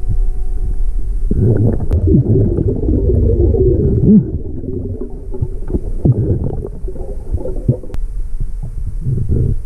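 Muffled underwater rumbling and swishing of water as a hand fans away the sand over a metal-detector target, loudest from about a second in until near the end. A faint steady hum sits under it at the start and again near the end.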